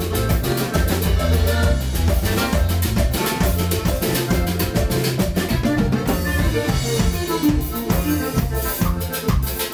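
Live band music with a steady beat: drum kit and timbales over electric bass and an acoustic guitar.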